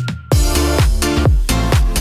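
Electronic dance music: after a brief break, a steady beat of deep kick drums comes back in about a third of a second in.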